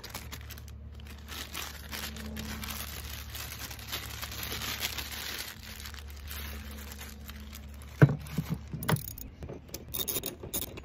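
Plastic bag crinkling as it is handled and pulled over a hood bracket, over a low steady hum. About eight seconds in come a sharp metallic click and a few quicker clicks as a socket ratchet is set on a hood bolt.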